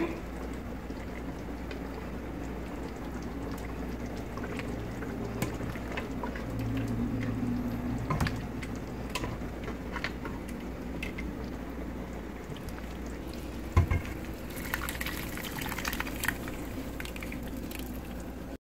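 Thick pork stew being ladled with a wooden spoon from a stainless steel pot into a serving pan: wet sloshing and pouring with scattered small clicks of the spoon on the pots, and one sharper knock about three-quarters of the way through, over a steady low hum.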